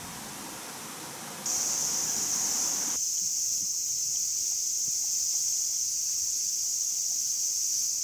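Bear cicada (kumazemi, Cryptotympana facialis) singing: a loud, steady, high buzz that comes in about a second and a half in. A soft hiss of noise underneath drops away about three seconds in.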